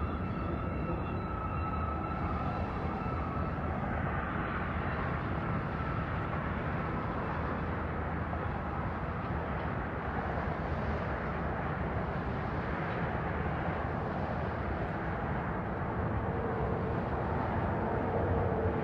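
Freight train rolling past: a steady rumble and rattle of steel wheels on rail, with a thin high squeal through the first few seconds. Near the end a mid-train diesel locomotive draws closer and its engine sound rises a little.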